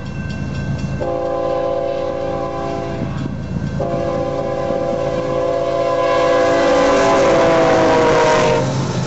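BNSF diesel freight locomotive's multi-chime air horn sounding for a grade crossing: a blast about a second in, a brief break, then a longer blast that drops in pitch as the lead locomotive passes close by, loudest just before it stops. Under it the locomotives' diesel engines rumble.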